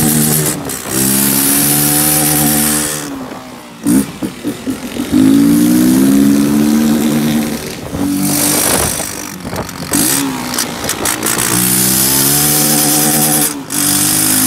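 Honda XRE 300 single-cylinder engine, its exhaust altered with a washer fitted in the tailpipe, pulling hard under way: the note rises in pitch in several pulls and drops out briefly between them, as the throttle is closed for each gear change.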